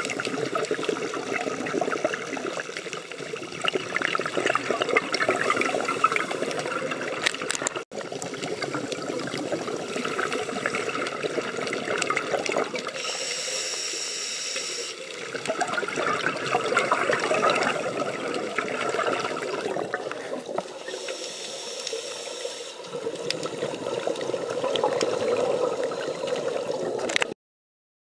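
Underwater sound: a scuba diver's regulator with exhaled breath bubbling out in surges every several seconds, over a constant crackling hiss of the water. It cuts off suddenly near the end.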